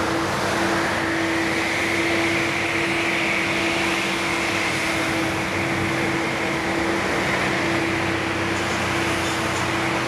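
Engine of a rail-mounted tree-trimming machine running steadily with a constant hum, joined by a higher whine that swells over the first few seconds and then eases off.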